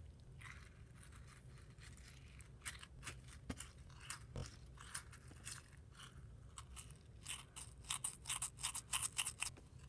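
Slime loaded with small beads being squeezed and kneaded by hand, giving faint crunching crackles that come thicker and louder near the end.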